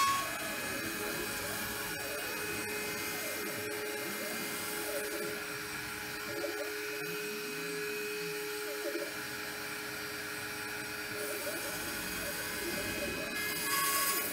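A DIY 5-axis CNC router carving XPS foam: the spindle runs with a steady whine while the axis motors whine in repeated rising and falling glides as the head moves. There is a louder moment at the start and again near the end.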